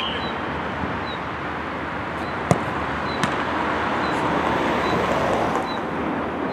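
A football struck hard in a set-piece shot, a single sharp thud about two and a half seconds in, followed by a softer knock under a second later as the shot reaches the goal. Steady outdoor background noise runs underneath.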